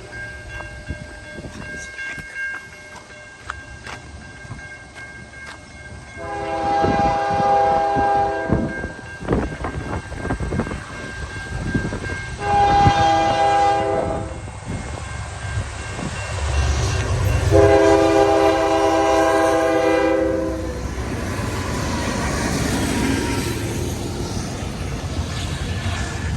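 Nathan K5HL five-chime air horn on CN locomotive 2265 sounding three blasts for a grade crossing: long, shorter, long. Then the train runs by with a steady rumble and wheel clatter.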